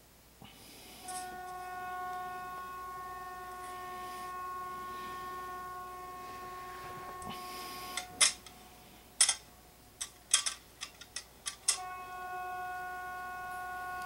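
Swedish emergency alert signal: a steady, buzzy tone that starts about a second in and holds. Between about eight and twelve seconds it is broken by a run of loud, sharp clicks while the tone almost drops out, then it returns.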